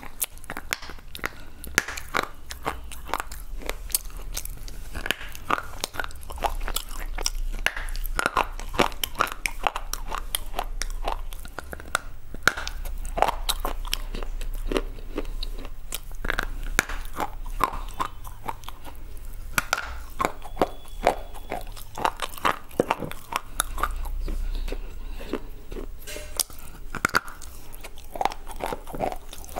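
Close-miked biting and chewing of brittle white slate bar: a dense run of sharp, dry crunches and crackles as pieces are bitten off and ground between the teeth.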